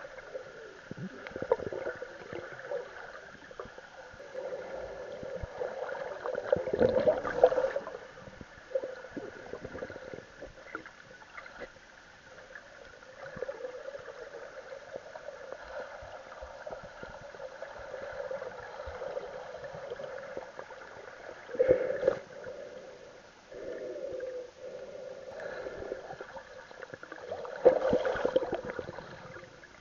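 Muffled water sloshing and gurgling, heard through a cheap action camera's own microphone, irregular and swelling louder several times.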